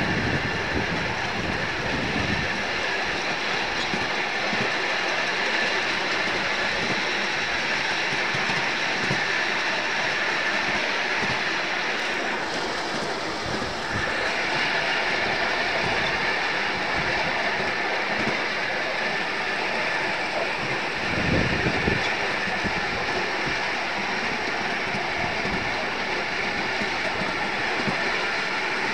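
A 7.25-inch gauge miniature steam locomotive and its coaches running steadily along the track, heard from on board, with continual clicking from the wheels on the rails. There is a brief louder rumble about three-quarters of the way through.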